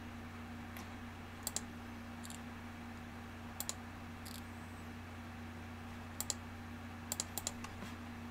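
Sparse clicks from computer input, mostly in quick pairs with a few single ones, over a steady low hum.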